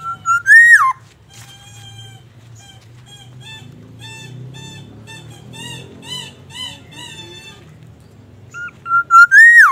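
Black-naped oriole singing: a loud fluted whistle that rises, then drops sharply, at the start and again near the end. In between comes a run of softer, repeated arched whistles, about three a second.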